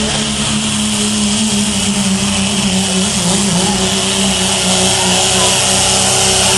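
Turbocharged Dodge diesel pickup's engine at full throttle under load during a sled pull, holding a steady high pitch.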